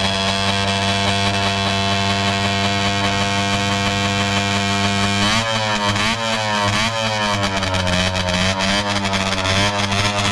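Vintage Scorpion snowmobile's two-stroke engine running at a steady idle, then revved up and down again and again from about halfway through.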